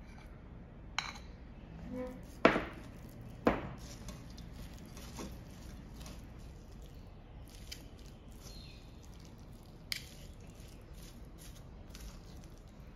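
Metal spoon and fork clinking against a stainless steel pot while tossing a shredded cabbage and apple salad. A few sharp knocks, the two loudest about two and a half and three and a half seconds in, with lighter taps later.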